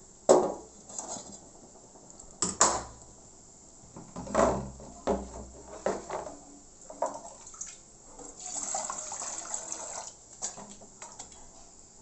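Metal cookware clanking in a stainless steel sink: a run of sharp knocks, the loudest about half a second and two and a half seconds in. About two-thirds of the way through there is a short stretch of running water.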